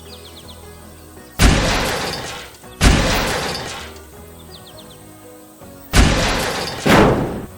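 Background music with four loud crashing sound effects, each a sudden hit that fades over about a second, the last two close together near the end.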